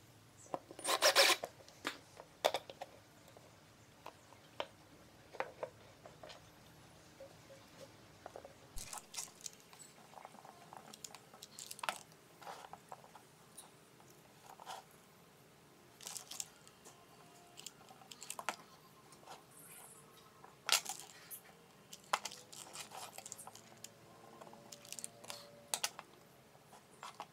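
Close handling noise of small hardware on a wooden workbench: scattered clicks, taps and light rubbing as screw terminals and wire leads are handled. There is a short scraping burst about a second in, as a small screwdriver turns a screw into the MDF board.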